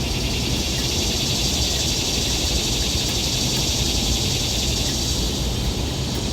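Steady background noise: an even hiss with a low rumble underneath, unchanging throughout, with no distinct sound events.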